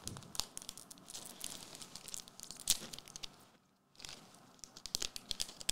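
Trading-card pack wrapper crinkling and tearing as a pack is opened and the cards are handled, in a run of sharp crackles with a short pause a little past halfway.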